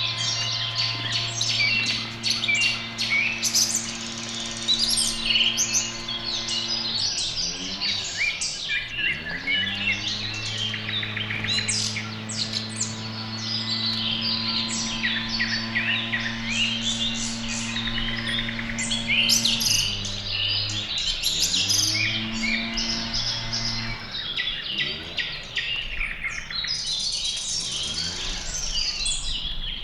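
Several songbirds chirping and calling over one another in quick, overlapping notes. Underneath runs a steady low drone that bends in pitch a few times.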